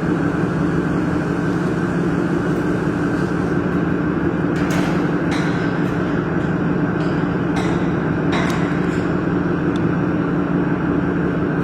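Handheld laser welding machine equipment running with a steady, even hum, while a pipe is welded on the rotation fixture. A few brief sharp hisses come around five and eight seconds in.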